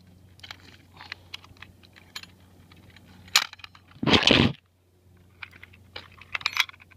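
Handling noise on a phone's microphone: scattered taps, clicks and rubbing, with a loud knock about three and a half seconds in and a brief loud scrape just after it, over a faint low hum.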